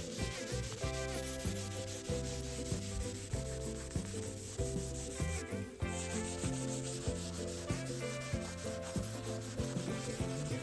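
Scrubbing or wiping, something rubbing steadily over a hard surface, over soft background music.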